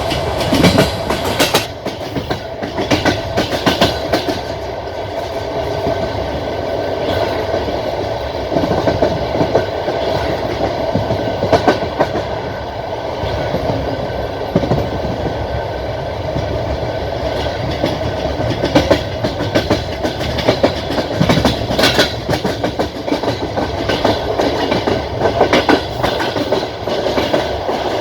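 Passenger coach wheels clacking over rail joints, in clusters of sharp knocks over the steady rumble and rail noise of a train running along the line.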